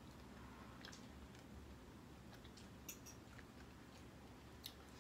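Near silence: room tone with a few faint clicks and mouth sounds from sipping a drink from a tumbler.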